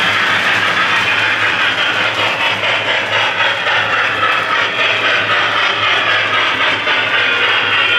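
Lionel 0-8-0 toy steam locomotive running with its Railsounds II board playing quick, even steam chuffing, over the rumble of the train on the track and a steady low hum.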